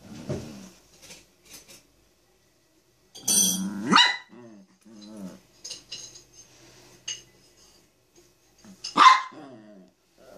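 Chihuahua barking: a loud bark about four seconds in and another about nine seconds in, each followed by softer grumbling, as it demands to be petted.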